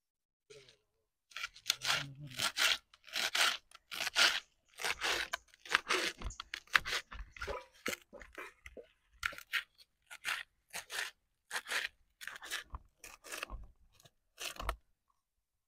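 Irregular crunching and scraping noises, about two a second, starting about a second in.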